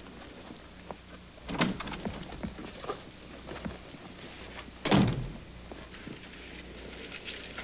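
Two thuds about three seconds apart, the second the louder, like a door shutting, over steady cricket chirping.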